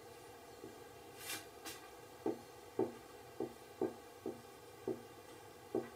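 Whiteboard marker writing on a whiteboard: a short scratchy stroke, then a run of light taps about two a second as the letters are written.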